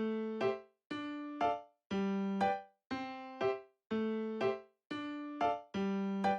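Background music: a light keyboard tune of plucked-sounding notes repeating about once a second, each note dying away.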